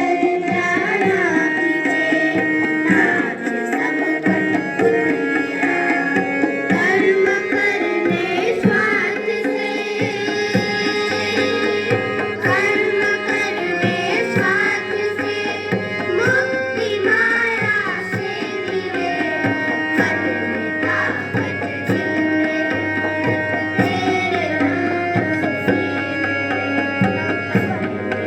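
Indian classical-style instrumental music: a tabla rhythm under a melodic line that slides between notes.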